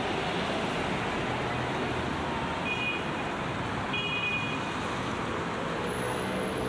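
Steady traffic noise from a busy city road, with two short high tones about three and four seconds in.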